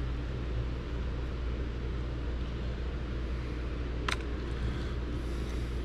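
Steady low background hum, with a single light click about four seconds in as something is picked up on the workbench.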